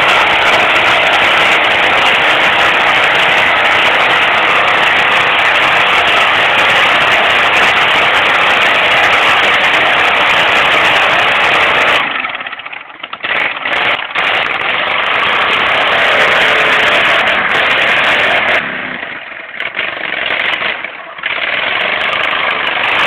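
Lawn mower engines running hard in mud, loud and steady, falling away briefly twice: once about halfway through and again near the end.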